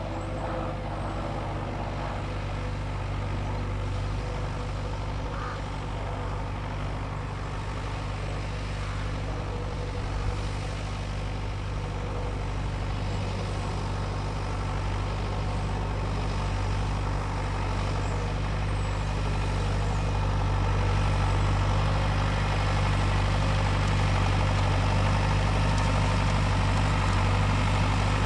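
Lamborghini R.4 110 tractor's diesel engine running steadily under load while pulling a plough, growing louder over the last third.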